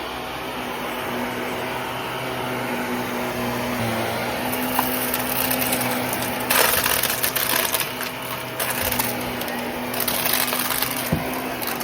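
Vacuum cleaner running with a steady motor hum; about halfway through, bursts of crackling and rattling come and go on top of it, loudest in two stretches near the end.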